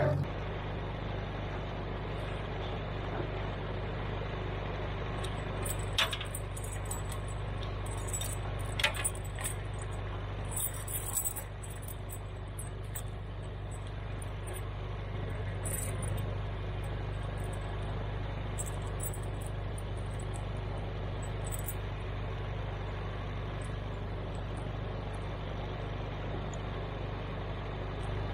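1949 Farmall Cub's four-cylinder engine idling steadily, with a log chain clinking and rattling as it is wrapped around a log, the sharpest clinks coming in a cluster between about six and eleven seconds in.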